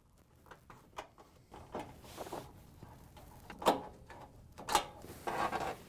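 Light clicks and scrapes of a nut driver working a screw out of a sheet-metal bracket on a dryer cabinet. Two sharper clacks come about a second apart, then a brief scraping rustle near the end.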